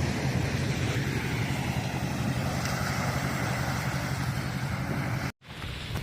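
An engine running steadily under a rushing wind-like noise, broken by a brief dead gap near the end.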